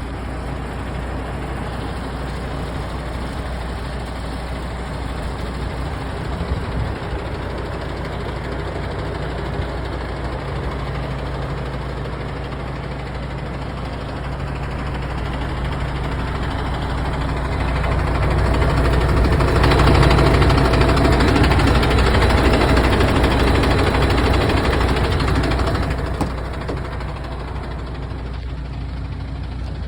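MAN TGX 21.440 truck's six-cylinder diesel engine idling steadily. Past the middle it gets louder for several seconds, then settles back to idle.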